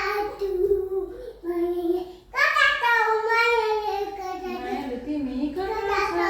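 A small girl singing in long drawn-out notes, her high voice sliding up and down in pitch, with a brief pause about two seconds in.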